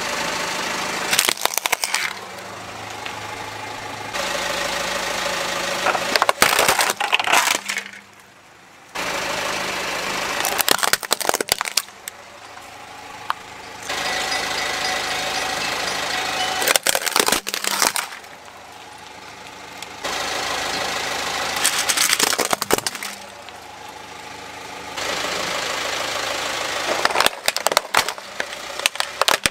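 A car's engine idling as its tyre rolls over plastic toys, crushing them with bursts of sharp cracking and crunching. This happens several times, with the sound changing abruptly between takes.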